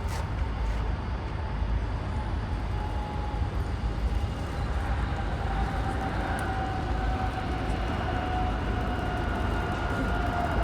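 Jet airliner engines whining over a steady low rumble, the whine slowly falling in pitch as the aircraft passes, growing louder toward the end.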